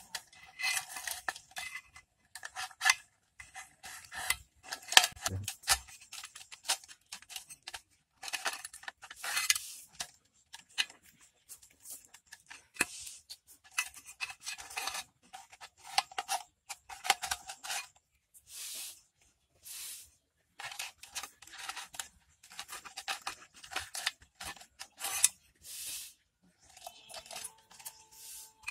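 Scissors cutting through a thin green plastic bottle in many short, irregularly spaced snips.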